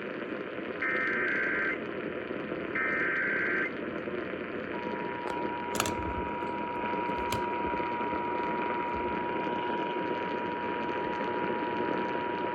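Emergency Alert System activation heard over radio through a steady static hiss: two short buzzing bursts of the digital SAME header, then, about five seconds in, the steady two-tone EAS attention signal. It announces an immediate evacuation order.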